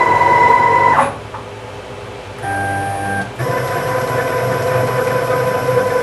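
Stepper motors of a DIY CNC router whining as the gantry is jogged into position. One steady pitch stops about a second in, a short higher-pitched move comes around two and a half seconds in, and a lower steady whine starts about three and a half seconds in.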